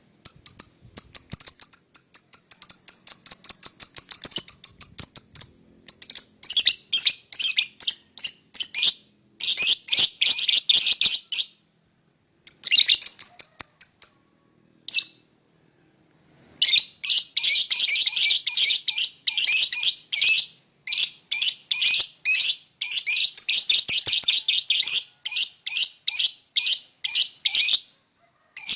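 Lovebird chattering in long runs of rapid, high-pitched chirps, many per second, broken by short pauses, with a silence of about two seconds near the middle.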